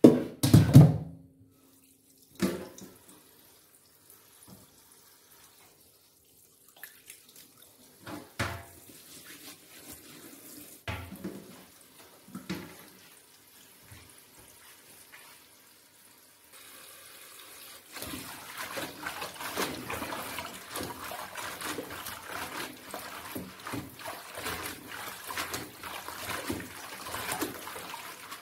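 A few loud knocks and clatters of things being handled, the loudest right at the start. Then, from a little past halfway, water runs from a tap and splashes steadily, louder for the last third.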